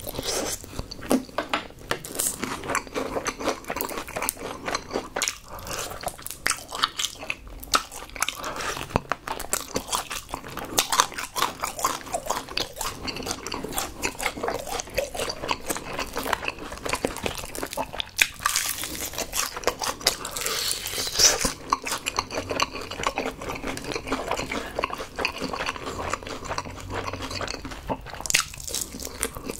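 Close-miked eating of Kyochon Honey Combo fried chicken: many crisp crunches as the coated chicken is bitten, mixed with wet chewing.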